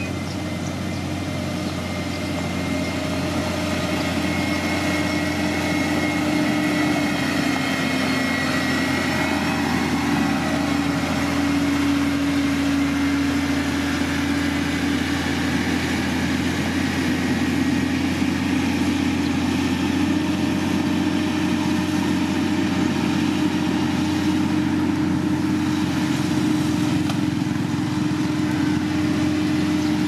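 Diesel engine of a heavy road-building machine running steadily, growing a little louder over the first few seconds, its pitch sagging slightly for a while in the middle before coming back up.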